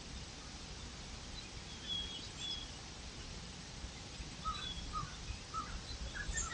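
Woodland ambience with a few faint bird calls over a steady low background noise. Two short high chirps come about two seconds in, then a run of four or five short, lower calls in the second half.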